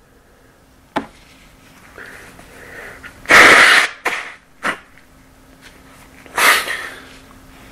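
A person sneezing twice, the first sneeze the louder, about three seconds in and again some three seconds later. A light click comes about a second in.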